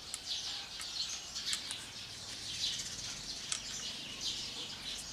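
A flock of small birds chattering: a dense, busy mix of short high chirps.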